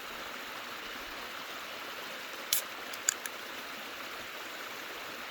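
A mountain stream running with a steady rush, with three short sharp clicks a little past halfway.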